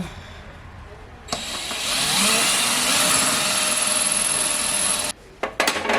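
Power drill running for about four seconds to drive a screw, then stopping suddenly, followed by a few short trigger bursts as the screw is snugged tight.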